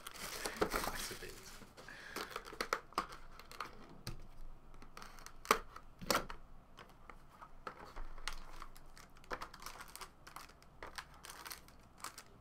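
Plastic shrink-wrap crinkling as it is pulled off a sealed trading-card box, followed by scattered sharp taps and scrapes as the cardboard box lid is handled and opened.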